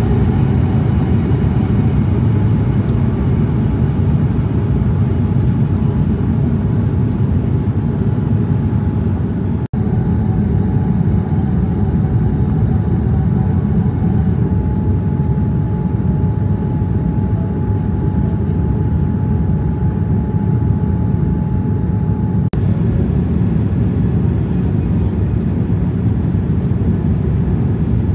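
Steady low cabin noise of a Boeing 787-10 airliner in flight, engines and airflow heard from inside the cabin, with a faint thin whine over it. The sound breaks off for an instant about ten seconds in.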